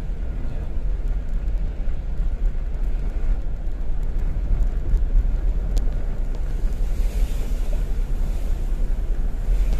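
Steady rumble of a vehicle driving along a road, with wind buffeting the microphone.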